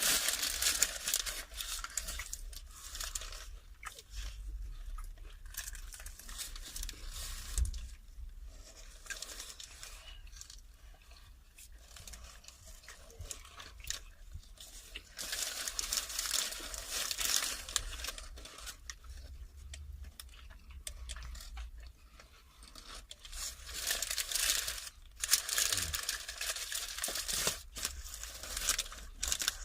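Close-miked eating of a lamb wrap: biting and chewing, with the wrapper crinkling and tearing in several noisy stretches between quieter chewing.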